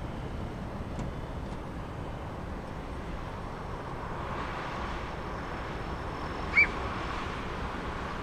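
Distant Airbus A330 jet engines, a steady rumble and hiss across the airfield, growing a little stronger about halfway through. About six and a half seconds in, a single short bird chirp rises and falls in pitch and is the loudest sound.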